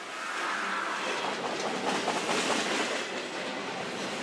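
A double-stack intermodal freight train passes close by. Its trailing locomotive gives way to container well cars, and the steel wheels clatter steadily on the rails.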